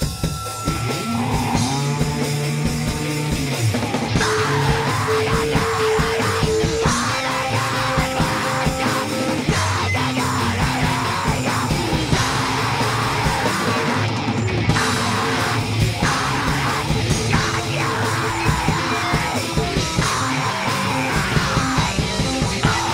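Live powerviolence band playing a song: distorted electric guitar and bass over a fast drum kit, with yelled vocals.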